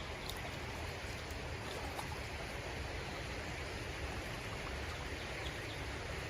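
Steady hiss of flowing creek water, with a few faint short ticks.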